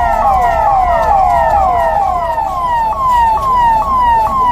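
Emergency vehicle sirens sounding in quick repeating falling sweeps, a little over two a second. Two sirens overlap at first, then one carries on alone.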